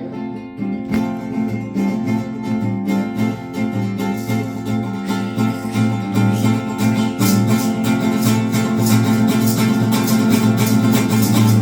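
Acoustic guitar strummed in a steady rhythm, growing louder through the passage, with the strums getting brighter from about halfway on.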